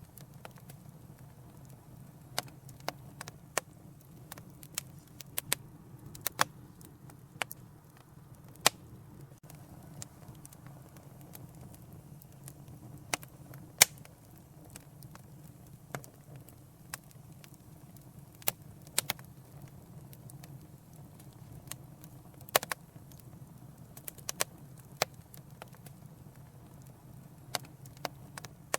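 Wood fire crackling in a fireplace: irregular sharp pops and snaps, a few much louder than the rest, over a low steady rumble of the flames.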